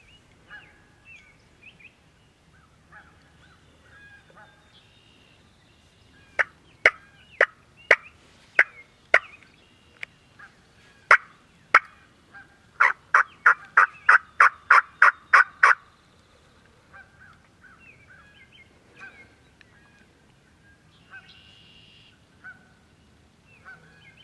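Turkey calling: about six seconds in, a string of sharp, loud single notes about half a second apart, then a fast run of about a dozen yelps at roughly four a second lasting about three seconds. Small birds chirp faintly throughout.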